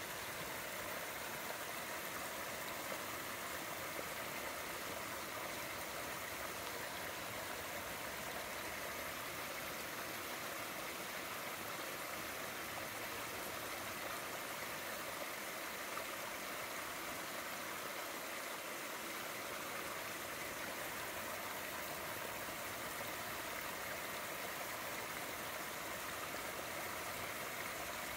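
Water rushing over a small weir in a shallow stream: a steady, even rush.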